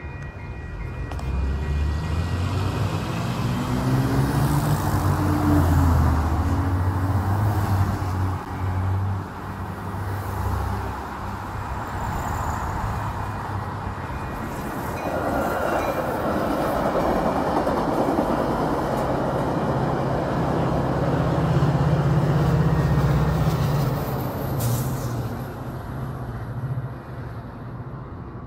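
Metra bilevel commuter train passing a grade crossing in push mode, its cab car leading and the diesel locomotive pushing at the rear. In the first several seconds a motor vehicle's engine rises and falls in pitch; from about halfway the rumble and hiss of the passing train builds, with a steady low locomotive drone near the end.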